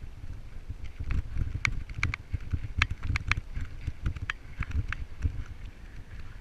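Mountain bike rolling fast over a rocky dirt trail, its frame, chain and parts rattling and clacking in quick irregular knocks over a steady low rumble of tyres on dirt. The clacking is thickest in the middle and thins near the end.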